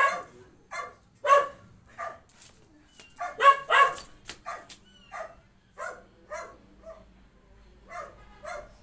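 A dog barking in short, repeated barks, loudest near the start and around one and three and a half seconds in, then fainter ones toward the end.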